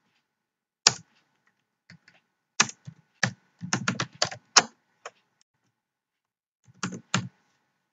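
Computer keyboard keys being typed in short, irregular runs of sharp clicks, then a pause and a final pair of taps near the end.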